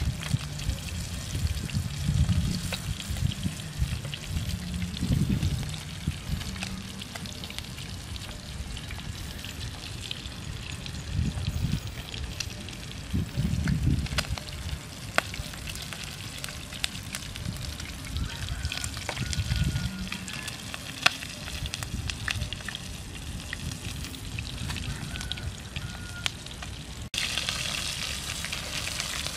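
Fish frying in oil in a frying pan, a steady sizzle with frequent crackles and pops, and low rumbles now and then. The sizzle grows louder and harsher near the end.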